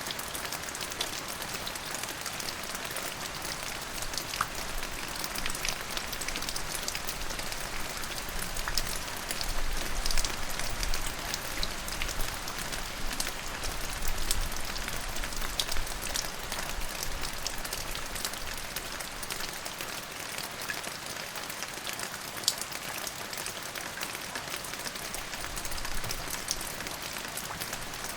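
Steady rain falling, with many close drops pattering on a surface. A low rumble of distant thunder swells and fades in the middle.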